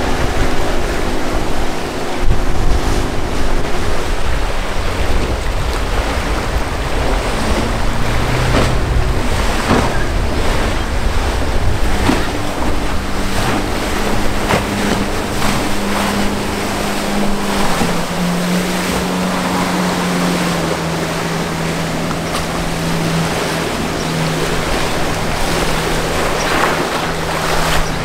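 Outboard center-console boats pushing through rough, churning water: a constant rush and splash of wake and chop with wind buffeting the microphone, under the steady drone of an outboard motor. In the second half the motor is a Tidewater's single Yamaha 150 outboard, its tone settling a little lower about two-thirds of the way through.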